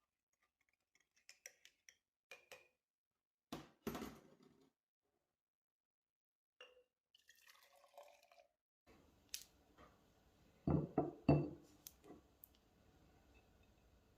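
Kitchen handling sounds: scattered light clinks and taps of glass and dishes, with a short run of louder knocks about eleven seconds in.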